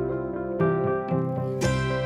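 Instrumental music: sustained chord tones with new plucked-sounding notes struck every half second or so.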